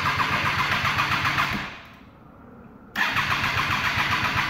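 2008 Triumph Daytona 675 three-cylinder engine being cranked by its electric starter, turning over with a fast, even pulse but not catching. There are two cranking attempts with a pause of about a second between them.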